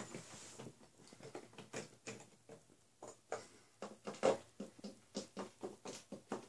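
Plastic and wooden toys being handled on a play table: a run of light, irregular clicks and taps, sparse at first and then louder and more frequent from about three seconds in.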